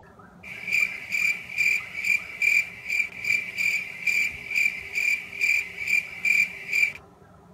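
Cricket-chirp sound effect: a loud, high-pitched chirp repeating very evenly a little over twice a second. It starts suddenly about half a second in and cuts off abruptly near the end.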